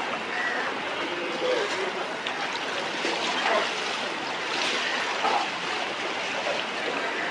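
Floodwater sloshing and splashing as people wade through it shin-deep, a steady watery wash with small swells.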